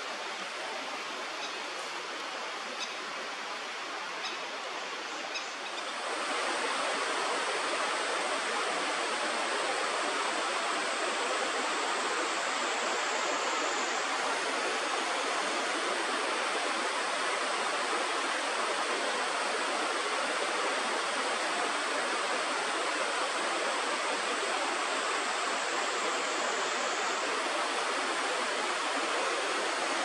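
Steady rush of flowing stream water, an even hiss with no breaks; it steps up louder about six seconds in.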